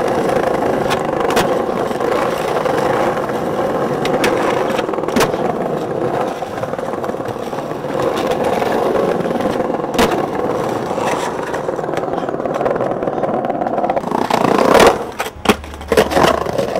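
Skateboard wheels rolling over paving stones: a steady rumble with a single click now and then. About three-quarters of the way through the rumble stops, and several sharp knocks of a skateboard hitting the ground follow.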